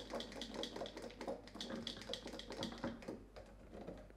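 One-handed trigger bar clamp being squeezed shut, its trigger clicking in a quick run of about four clicks a second that fades out about three seconds in.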